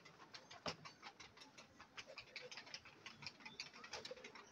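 Faint, irregular clicking and ticking, several clicks a second, with one sharper click about two-thirds of a second in.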